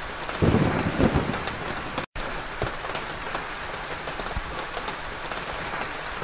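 Rain falling on paved tiles: a steady hiss with many individual drop impacts. A low rumble comes through from about half a second in to just past a second, and the sound cuts out for a moment about two seconds in.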